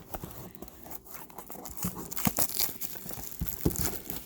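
Trading-card packaging being torn open and crinkled by hand, with irregular crackles that grow busier about halfway through.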